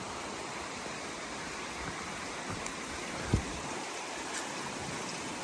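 A creek running steadily over rocks, an even rush of water, with a single dull thump a little past halfway.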